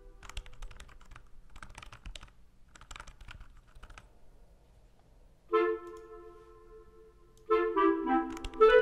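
Three short bursts of quiet typing on a computer keyboard, followed by a woodwind melody that enters about halfway through with a held note, then a louder run of notes near the end.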